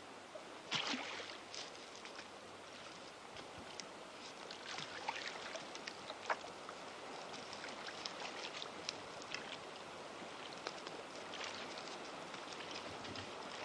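River water flowing and lapping: a faint steady wash with scattered small splashes and trickles, and one louder splash about a second in.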